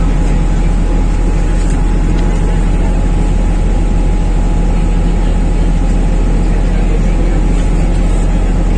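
Loud, steady drone of a vehicle's engine and motion, heard from inside the vehicle, with a faint steady whine above the rumble.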